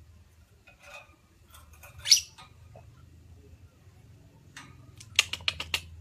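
Female lovebird calling in scattered sharp, shrill chirps over a low steady hum: a loud one about two seconds in, then a quick run of about six chirps near the end.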